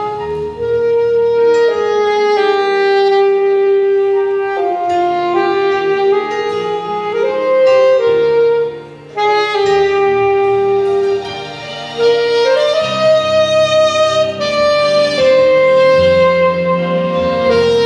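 Saxophone playing a slow melody of long held notes, with grand piano accompaniment underneath. The line breaks briefly a little before nine seconds in, then carries on.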